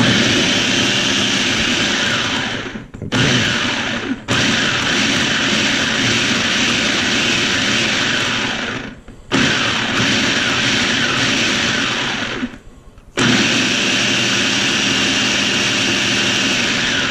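Electric food processor blending achiote paste and citrus juice into a marinade, run in five bursts of a few seconds each with short breaks between them; before the longest break the motor can be heard winding down.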